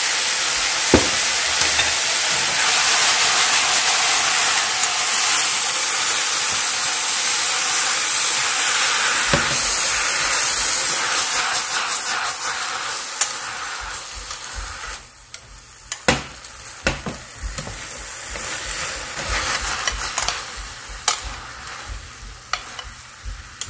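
Water spinach stir-frying in a hot stainless steel pan over high heat, sizzling loudly as fish sauce is spooned in. After about twelve seconds the sizzle dies down to a quieter hiss, broken by sharp clicks of the utensil against the pan as the greens are tossed.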